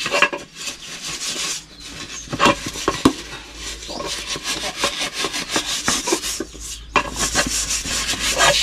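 Metal scouring pad scrubbed back and forth in quick strokes on a soot-blackened aluminium pot, a rasping scrape with a couple of short breaks, scouring off burnt-on black grime.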